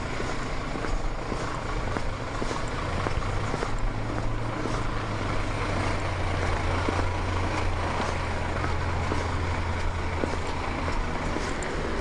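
Motor-vehicle traffic noise: a low engine drone swells from about three seconds in and fades near the end, over footsteps on wet asphalt.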